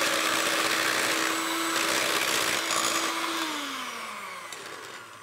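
Electric hand mixer whipping cream in a glass bowl, its motor whirring at a steady pitch. About three and a half seconds in it is switched off and winds down, the pitch falling as it fades.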